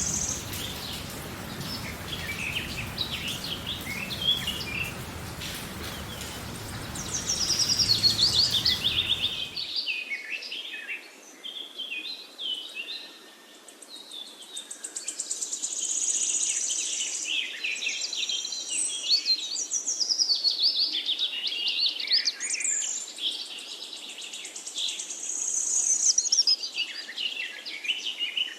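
Several birds chirping and singing at once, a dense chorus of short high chirps and trills that overlap throughout. For about the first ten seconds a low background rumble runs under the birdsong, then stops abruptly.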